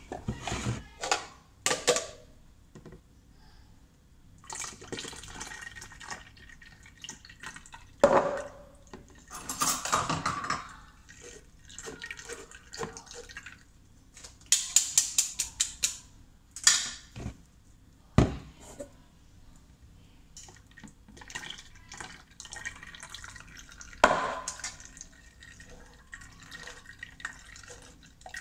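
Juice dripping and splashing through a mesh strainer into a plastic pitcher, with a spoon clinking and scraping against the strainer and the pitcher. Sharp knocks stand out several times amid the softer sound of the liquid.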